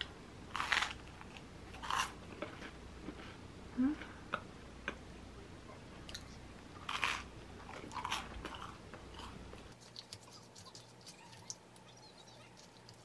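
Close-up crunching bites into a slice of toasted whole-wheat bread, several loud crisp crunches a second or more apart, with chewing between. Faint small clicks near the end.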